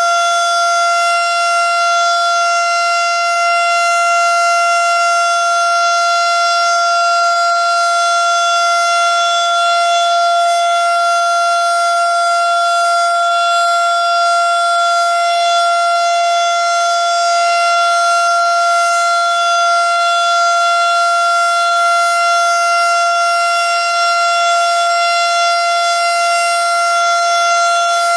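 Federal Signal STH-10 outdoor warning siren sounding a loud, steady tone held at full pitch, with no rise or fall.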